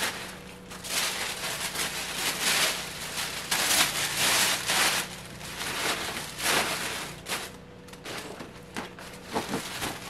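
Tissue paper rustling and crinkling in irregular bursts as it is crumpled, fluffed and pushed into a gift bag, easing off near the end.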